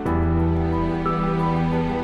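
Background music: slow, sustained chords, with a new chord starting at the beginning and a higher note entering about a second in.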